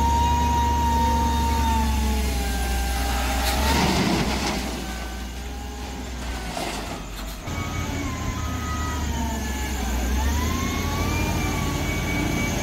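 SDLG wheel loader's diesel engine running under load, its note rising and falling as it lifts and tips a bucket of coal into a truck trailer. A rush of coal sliding from the bucket comes about four seconds in, with a shorter one near seven seconds.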